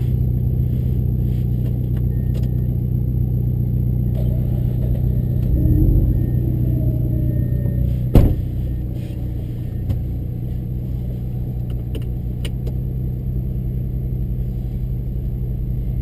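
Mazda RX-8's twin-rotor Wankel engine idling through its aftermarket exhaust, heard from inside the cabin, swelling briefly about six seconds in. A single sharp thump about eight seconds in.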